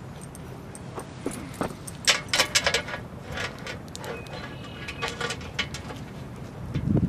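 A Siberian husky's metal chain leash and collar jingling in short rattles as it walks about, loudest about two seconds in and again around three and a half and five seconds.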